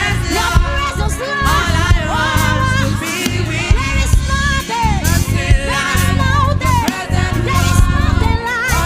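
Live band music with singing: wavering, sliding vocal lines over a steady bass line and drums, in a gospel-style worship song.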